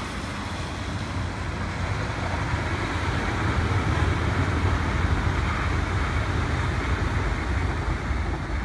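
ITX-Cheongchun electric train running past on the track: a steady low rumble of wheels on rail that grows louder over the first few seconds, then holds.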